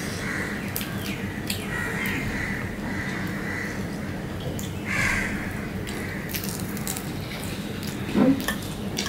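Eating by hand from a steel plate: fingers mixing rice and fried fish with soft squishes and clicks, and chewing, over a steady low hum. The loudest click comes about eight seconds in.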